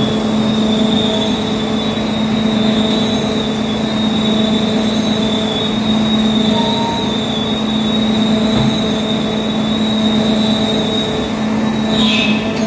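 Forge-shop machinery and large drum cooling fans running: a loud, steady drone with a constant low hum and a high whine, and no hammer or press blows. A short falling squeal comes near the end.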